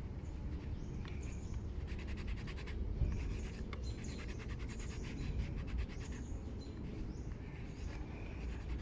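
Small birds chirping again and again over a steady low outdoor rumble. Twice there are runs of rapid scratching as a stick of dry pastel is rubbed across the sketchbook paper.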